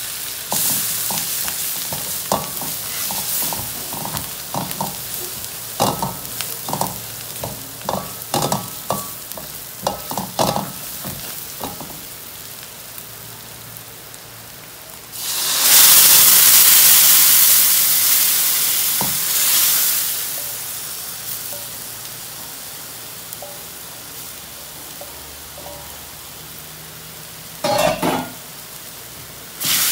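Spice paste frying in oil in a metal wok, stirred and scraped with a spatula that clicks and taps against the pan. About halfway through comes a sudden loud sizzle, as when liquid is poured into the hot pan, which slowly dies down to a gentle simmer. There are a couple of knocks near the end.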